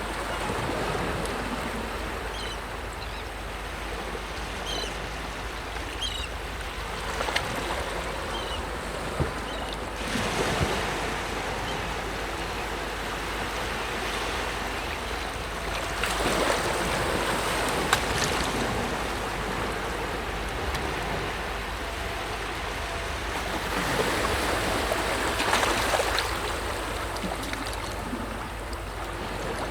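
Sea waves breaking on a beach: a steady wash of surf that swells as a wave breaks every several seconds, three times.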